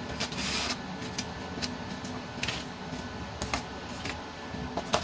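Aluminium foil baking tins being set down one after another on a metal baking tray, giving a few light clicks and a short foil crinkle, over a steady background hum.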